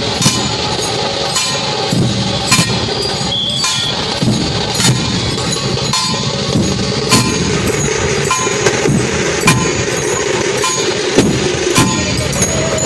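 Procession percussion: drum beats and ringing metal strikes at an uneven pace, roughly one to two a second, over a dense crowd-and-music din.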